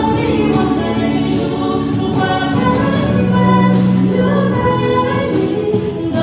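Singing over backing music, with long held notes.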